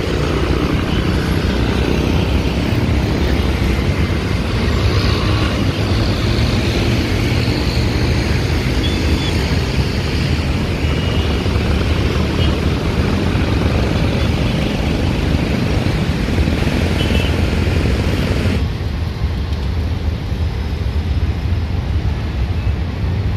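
Airbus A330 airliner's jet engines running at takeoff thrust, a loud steady noise as it rolls and climbs away. About three-quarters through, the sound changes abruptly to a duller, quieter engine noise from another widebody jet on the runway.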